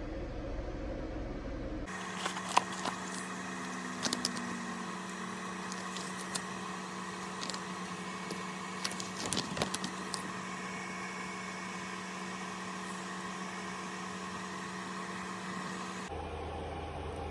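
A paper instruction leaflet being unfolded and handled, with crinkles and sharp clicks during the first half, over a steady electrical hum.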